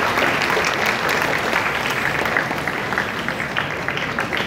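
Audience applauding, a dense patter of many hands clapping that slowly thins near the end, leaving scattered single claps.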